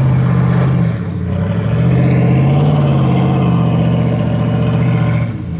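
The 1999 Chevy Tahoe's engine revving hard under load. It eases off briefly about a second in, then is held high again and drops off near the end.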